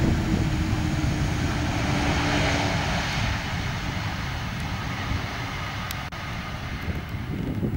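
Twin-engine wide-body jet airliner at takeoff thrust, rolling down the runway and rotating: a steady jet roar with a deep rumble, easing off somewhat in the second half as the aircraft moves away.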